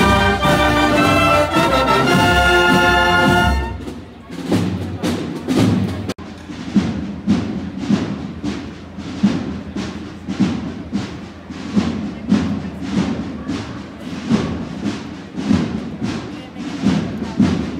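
Wind band of brass and clarinets playing loud held chords up close, cut off about four seconds in. Then a marching band's drums beat a steady march, a little under two beats a second, from farther off.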